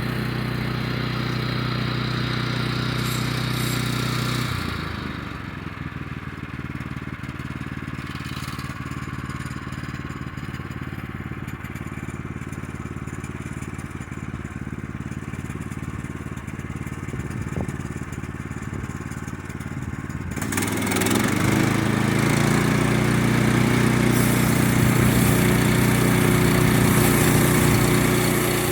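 Small gasoline engine of a portable bandsaw sawmill running at speed, dropping to a quieter, lower idle about four seconds in, then running up again, louder and fuller, about twenty seconds in.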